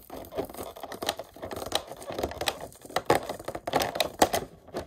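Irregular sharp clicks and crackles of a stiff clear plastic blister-pack window being pressed and handled by fingers.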